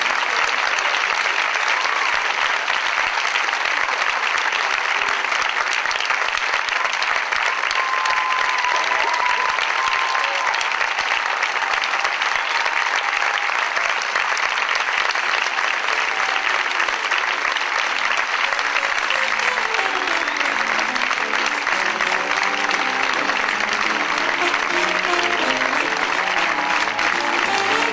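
Audience applauding steadily, with music coming in beneath the clapping about two-thirds of the way through.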